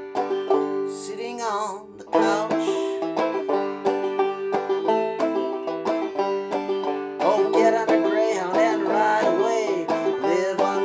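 Banjo played clawhammer style: an instrumental break of struck notes and brushed strums in a steady, quick rhythm.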